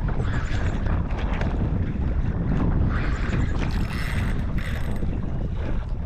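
Wind buffeting the microphone on a kayak at sea, a steady low rumble, with a few short noisy bursts about halfway through.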